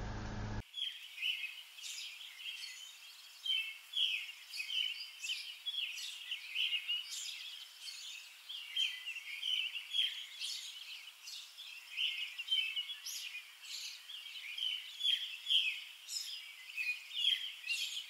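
A steady room hum cuts off in the first second. Then wild birds chirp and sing in a busy, continuous run of short high calls.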